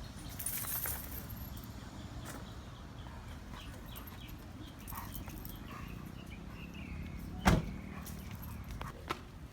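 Handling and movement sounds of a drug-detection dog being worked on a leash: a brief jingle near the start and one loud, sharp thump about three-quarters of the way in, with faint bird chirps behind.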